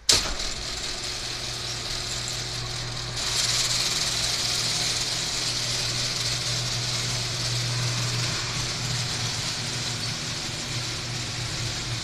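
Sectional garage door being raised by its electric opener: a steady motor hum with the rollers rattling along the steel track. It starts abruptly, grows louder about three seconds in, and stops right at the end as the door reaches the top.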